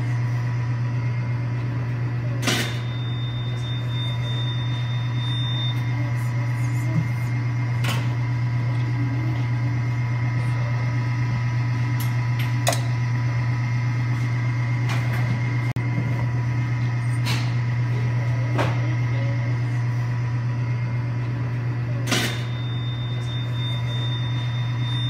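A steady low machine hum, with a few sharp clicks or knocks every few seconds.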